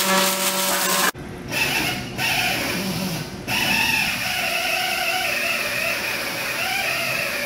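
Robotic arc welding buzzing and crackling for about a second. After that comes a continuous mechanical whine that wavers in pitch as an industrial robot arm on an overhead gantry moves.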